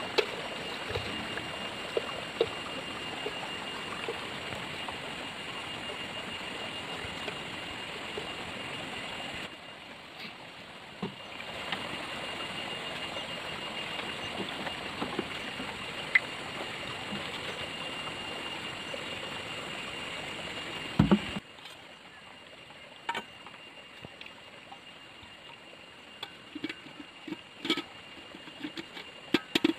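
Steady outdoor background hiss with a faint constant high whine, and scattered light knocks and taps from handling a cooking pot and leaves. The background drops abruptly twice, and near the end come a few short clinks as a steel bowl is set on the pot as a lid.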